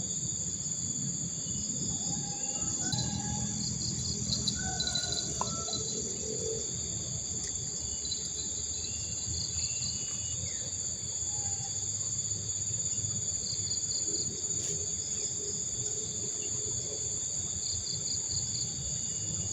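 Insect chorus: steady high-pitched trilling in several bands, with rhythmic pulsed chirps coming and going every few seconds. A low steady rush runs underneath.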